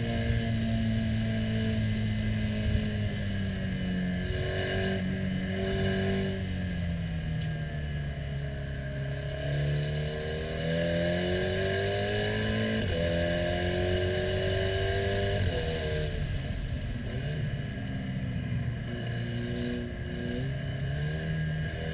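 KTM X-Bow Comp R's turbocharged four-cylinder engine, heard from the open cockpit on track, with its DSG dual-clutch gearbox shifting. The revs fall under braking with quick downshifts in the first few seconds, then climb under power with upshifts about midway, and rise again near the end.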